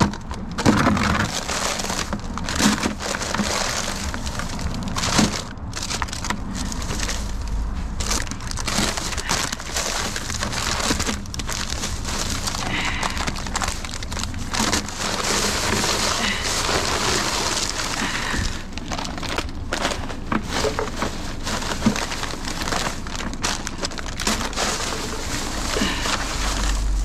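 Plastic trash bags rustling and crinkling steadily as hands dig through them, with frequent small crackles and knocks of packages.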